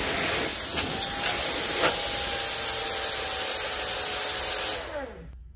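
Miller plasma cutter cutting aluminum plate: a loud, steady hiss of the arc and air jet that cuts off about five seconds in, with a tone sliding down as it dies away.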